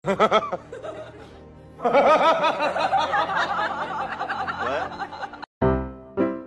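Snickering laughter: a few short chuckles, then from about two seconds in a fast run of ha-ha pulses lasting about three and a half seconds. Near the end it stops and a music tune starts.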